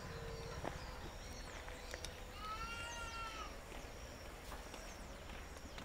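A single drawn-out animal call, rising and then falling in pitch, about two and a half seconds in, over steady outdoor background noise with a few faint short chirps.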